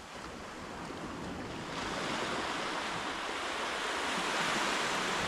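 Small waves washing onto the shore in calm surf: a steady rushing hiss that grows louder about two seconds in.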